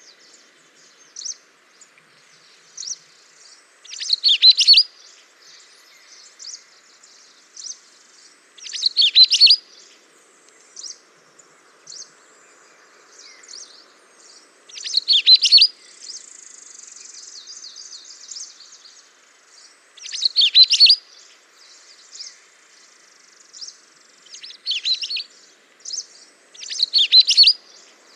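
Songbird song: short, bright, high-pitched phrases about a second long, repeated every few seconds, with softer single chirps in between.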